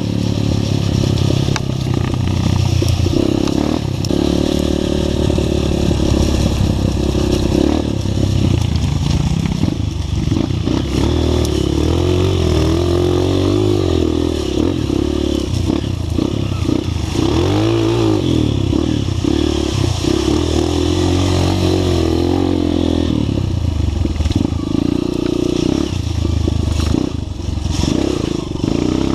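Off-road trail motorcycle engine running under load, its pitch rising and falling again and again as the throttle is opened and closed.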